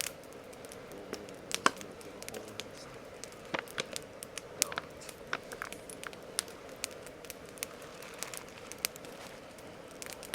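Wood campfire crackling, with irregular sharp pops and snaps, the loudest about one and a half seconds in.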